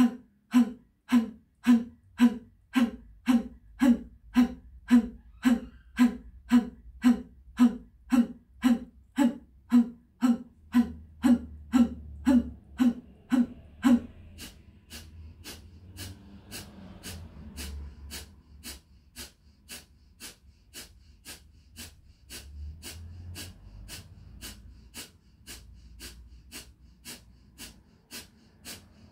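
Kapalabhati breathing: rapid, forceful exhalations pumped from the belly, about two sharp puffs a second. About halfway through the puffs become much quieter but keep the same pace.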